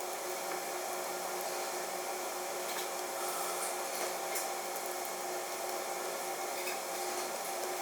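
Steady background hiss with a faint hum, and a few faint light clicks.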